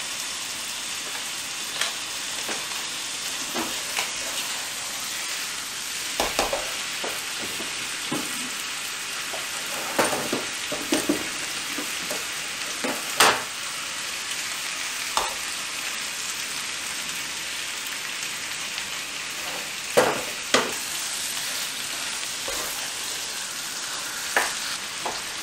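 Chicken pieces frying in curry paste in a wok: a steady sizzle as it is stirred with a spatula, with a few sharp knocks now and then.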